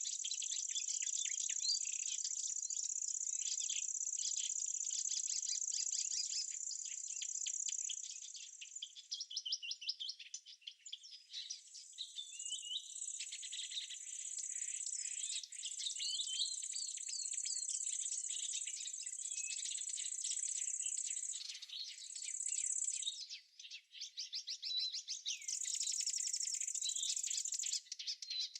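Summer insects trilling in a continuous high buzz that breaks off and starts again a few times, with small birds chirping over it.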